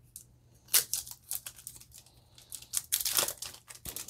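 Foil wrapper of a Yu-Gi-Oh booster pack crinkling and tearing open in the hands, in irregular crackles, busiest around three seconds in.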